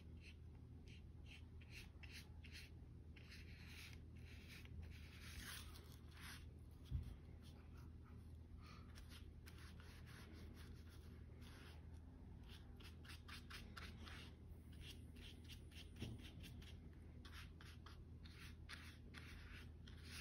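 Paintbrush bristles brushing paint onto a paper plate: faint, repeated short swishing strokes over a steady low hum. A low thump about seven seconds in and another around sixteen seconds.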